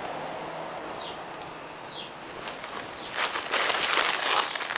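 Rustling and crinkling as the non-woven shopping bag and the plastic noodle packet inside it are handled, starting loudly about three seconds in. Before that, a few short bird chirps over a quiet hiss.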